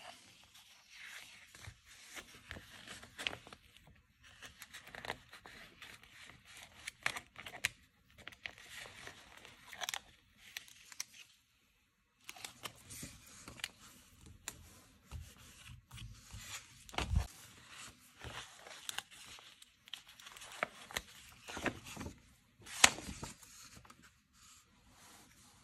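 Paper stickers being peeled off their backing sheet and pressed onto a sticker-book page, with irregular crackling, peeling and paper rustling. There is a low thud about two-thirds of the way through and a sharp crack near the end, which is the loudest sound.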